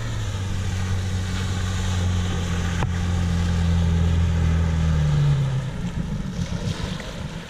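Sea-Doo GTI jet ski's two-stroke engine running steadily, its drone growing louder as the craft approaches. It lifts briefly in pitch and then drops away about five and a half seconds in as the rider comes off the throttle.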